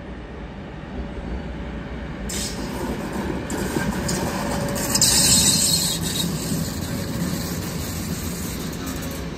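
Train moving through station tracks with a steady rumble and a high wheel squeal that sets in after about two seconds and is loudest around five seconds in.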